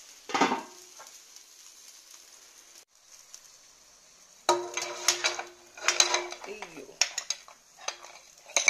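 A metal ladle clinking and scraping against a stainless steel steamer rack, pot and snail shells, sharp knocks with ringing metallic notes, starting about four and a half seconds in. Earlier, a pot lid is set down with a single clank over a faint steady hiss.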